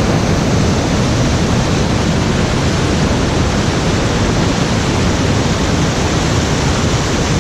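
Loud, steady rush of fast-flowing water from a waterfall.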